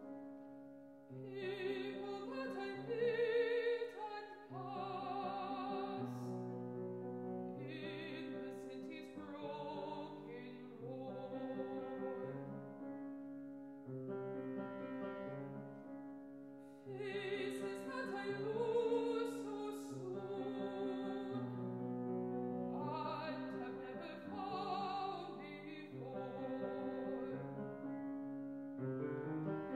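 Mezzo-soprano singing an art song with vibrato, accompanied by a grand piano, in several phrases with short breaks between them.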